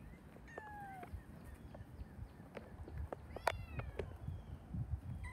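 Kittens mewing: a few short, thin calls, each falling in pitch, with light clicks and rustling in between.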